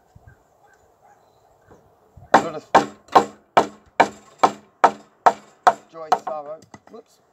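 Nine quick, evenly spaced chops of a hand-held blade into a wooden beam, a little over two a second, each a sharp knock with a short ring. The wood may well be oak.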